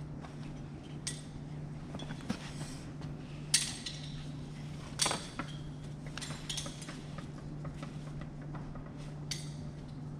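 Metal safety-harness hardware clinking as it is handled: scattered sharp clicks and clinks, the loudest about three and a half and five seconds in, over a steady low hum.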